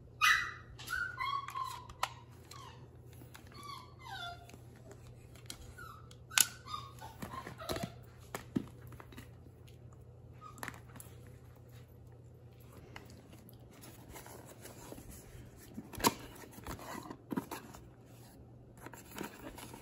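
A string of short high whining squeaks, several sliding down in pitch, over the first eight seconds or so, with scattered sharp clicks and taps throughout and a faint steady low hum underneath.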